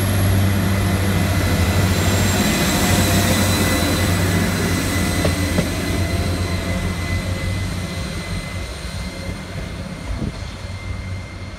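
Class 175 diesel multiple unit passing through a station: a steady diesel engine drone with rolling noise, fading over the last few seconds as the train draws away.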